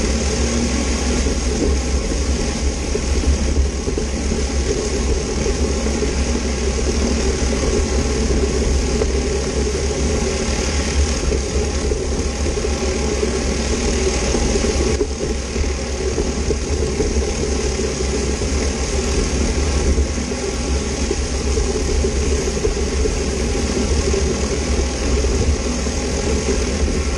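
Whirl-A-Way flat surface cleaner running on block paving: high-pressure jets from its spinning spray bar hiss against the surface under the housing, over the steady drone of the pressure washer.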